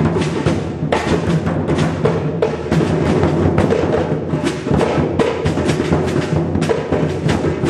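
Drums played together by a group, a fast, steady rhythm of dense drum strokes that keeps going without a break.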